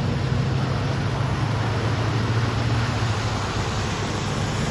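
Vehicles driving through deep floodwater: a steady rush of water and spray over a low, even engine hum.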